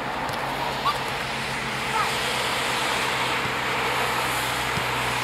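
Steady outdoor rushing background with a faint low hum, and a couple of short, distant shouts from players on the pitch about one and two seconds in.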